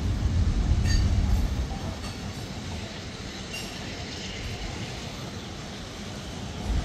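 Freight train hopper cars rolling past on the rails: a heavy low rumble with a few wheel clicks, easing off about two seconds in and picking up again near the end, with a faint wheel squeal in the middle.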